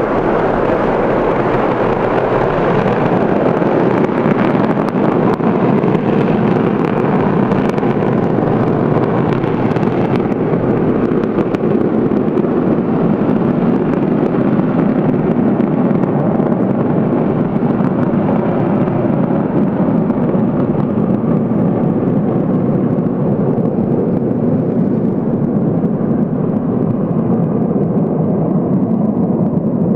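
Tupolev Tu-160's four NK-32 afterburning turbofans at full power on a take-off run: a loud, steady jet noise that grows duller over the second half as the bomber draws away.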